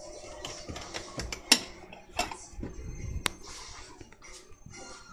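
Dishes being handled for a bowl of cereal: a few sharp clinks and knocks, with scraping and rustling between them.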